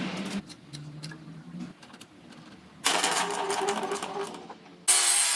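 Electric power tool working wood in two loud runs, the first about three seconds in and a louder one near the end, after a quieter stretch of low motor hum and small clicks.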